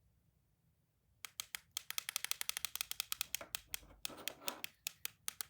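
A toy clicking rapidly in a fast run of sharp clicks, several a second. The clicks start about a second in and stop just before the end.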